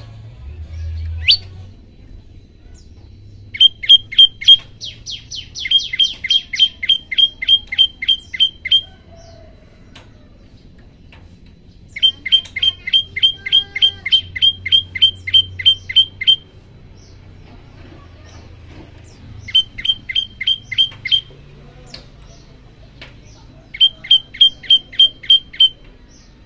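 Prenjak lumut song: rapid trains of sharp, evenly repeated chip notes at about four a second, in four bursts of two to five seconds each.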